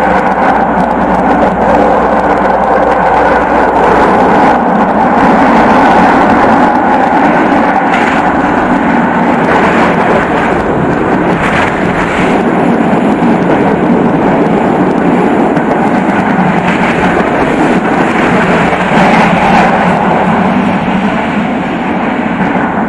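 Tram running at speed, heard from inside: a loud, steady rolling noise of steel wheels on the rails, with a few sharper clacks here and there.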